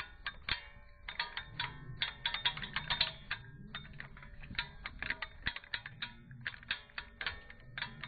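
Background music of quick plucked-string notes in rapid runs over a low bass line.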